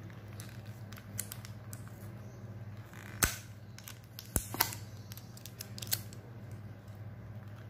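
Fingernail picking at the tape seal of a cardboard trading-card box, with a few sharp clicks and snaps of cardboard and tape, the loudest about three seconds in. A low steady hum lies under it.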